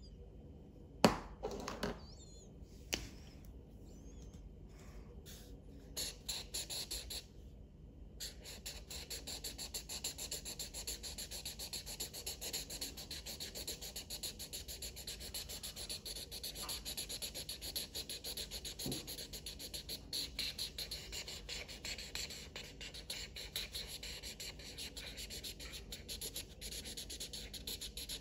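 Felt-tip marker scribbling rapidly back and forth on paper, a continuous fast scratching from about eight seconds in. Before that, a few sharp clicks and taps, the loudest about a second in.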